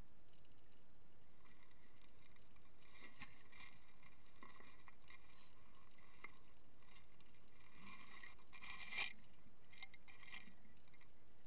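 Water moving around a kayak: soft sloshing and trickling with scattered small clicks, and one slightly louder knock about nine seconds in.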